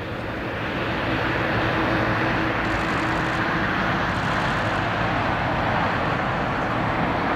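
Boeing 747-400 airliner landing: the steady roar of its four jet engines swells over the first second or so and then holds as the main gear touches down.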